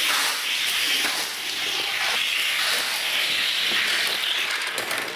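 A toy car's wheels rolling along a toy race track, a steady rushing hiss that fades away near the end.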